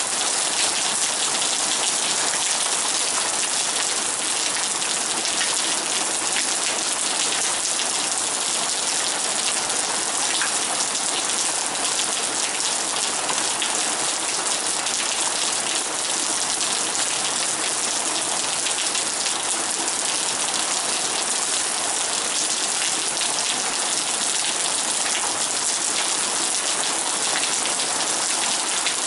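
Heavy rain pouring down steadily, a dense patter of drops that holds at one level throughout.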